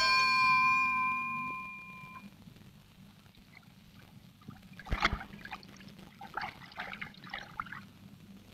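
Cartoon soundtrack music ends on a few held tones that fade away over about two seconds. Then come a single soft thump about five seconds in and scattered light clicks.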